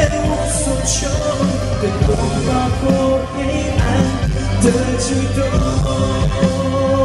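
Live band playing a pop-rock song with a male lead singer holding long notes over drums and bass.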